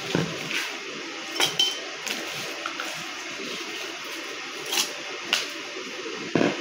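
Ice cubes dropped into drinking glasses of mango pulp, making a scattering of short, sharp clinks against the glass at irregular intervals, with a louder knock near the end.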